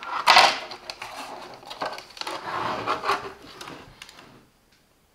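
Handling noise from the opened ALLPOWERS S200 power bank: its plastic housing and cover rubbing, sliding and knocking on a wooden tabletop as it is picked up, with the loudest rub about a third of a second in.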